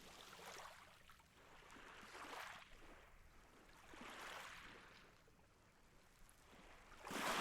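Faint ocean waves washing in, a few soft swells that rise and fade, the last and loudest near the end.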